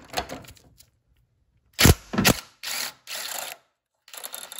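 Hand ratchet with a socket on an extension clicking as it turns a motor mount nut off its stud. Two sharp metal knocks come about two seconds in and are the loudest sounds, followed by stretches of fast ratcheting, then more single clicks near the end.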